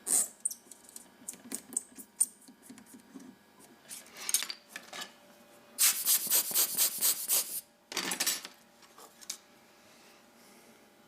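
A small metal watch part being hand-polished with short scraping rubbing strokes, including a quick run of about four strokes a second partway through. The strokes stop near the end.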